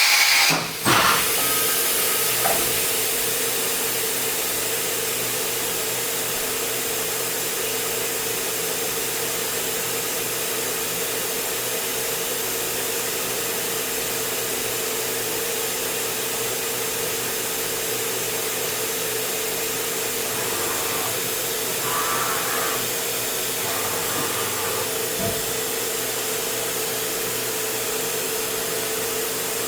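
Hardinge GX480 vertical machining center running under power: a steady hiss with a constant mid-pitched whine. A brief loud noise comes right at the start, and a higher tone comes and goes briefly about two-thirds of the way through.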